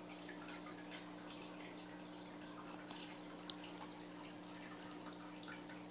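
Faint water dripping and trickling in a paludarium, irregular small splashes over a steady low hum.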